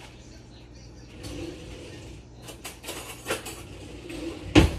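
Kitchen items being handled at a counter: rustling, a few sharp clicks and taps, then one loud sharp knock near the end.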